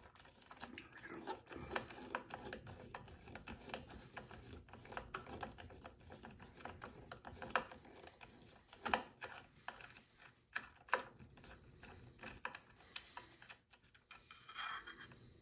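Wrench working at the nut of a small idler wheel in a tight spot: light, irregular metal clicks and scrapes, with a few sharper clicks.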